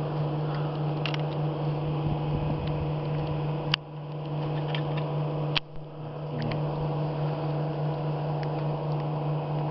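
A steady low mechanical hum, with two sharp clicks, one about four seconds in and one about six seconds in.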